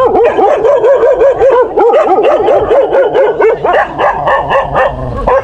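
Several dogs barking fiercely at an approaching stranger: a fast run of about four barks a second, then looser, overlapping barks.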